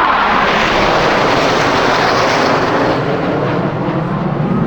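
Jet noise of BAE Hawk trainers' Adour turbofan engines as the display jets pass: a loud rush that swells to a peak about two seconds in and falls away after about three.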